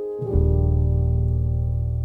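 Slow instrumental piano music: a new chord with a deep bass note is struck about a third of a second in and rings on, slowly fading.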